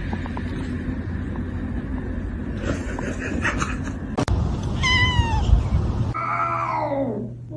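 Cat meowing: a short meow about five seconds in, then a long drawn-out meow that falls steadily in pitch near the end. A steady low rumble fills the first half before either call.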